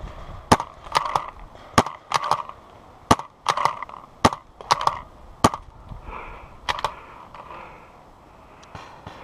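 A pump-action paintball marker fired about five times in steady succession, each sharp pop followed about half a second later by the clack of the pump being racked for the next shot, with a last pair of clicks around seven seconds in.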